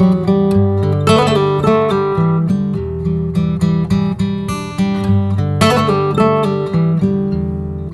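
Background music on acoustic guitar: picked notes, with a strummed chord about a second in and another just before six seconds.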